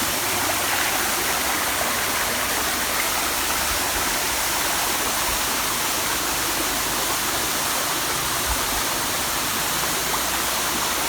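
Waterfall of about 15 metres with its stream: a steady rush of falling and splashing water.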